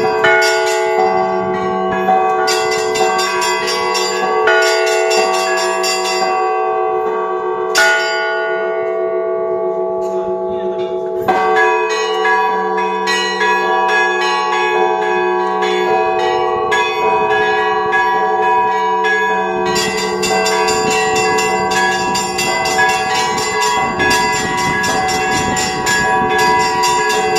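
Monastery church bells rung by hand by a bell ringer in a festive Easter peal: rapid chiming of the small bells over the lingering hum of larger bells. The chiming thins out for a few seconds, a heavy bell stroke comes about eleven seconds in, and then the dense chiming picks up again.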